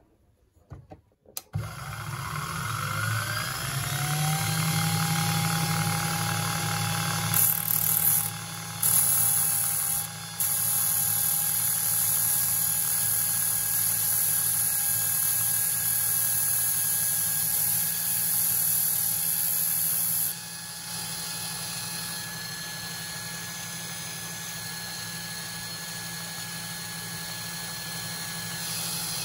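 Handmade mini grinder's small electric motor switched on, its whine rising as it spins up over about three seconds, then running steadily. From about seven seconds in until about twenty, a loud high hiss rides over the whine, after which the motor runs on more quietly.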